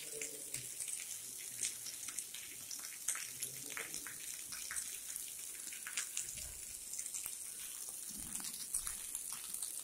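Rain falling and running off a roof edge, the drops splashing on wet stone paving: a steady patter with many separate splashes.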